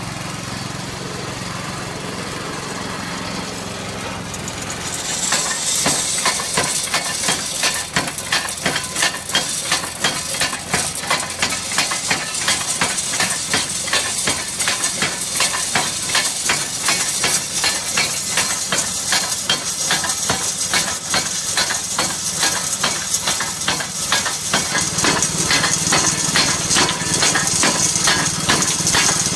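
Small stamp mill running: an engine runs steadily, and about five seconds in the stamps start dropping in a fast, even rhythm, pounding ore in the mortar.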